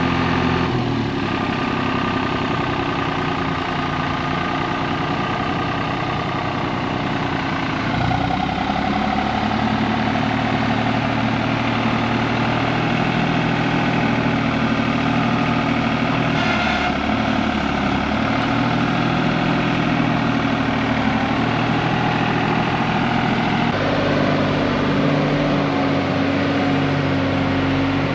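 John Deere 3046R compact tractor's diesel engine running steadily, its engine speed changing about a second in, again about eight seconds in, and once more near the end.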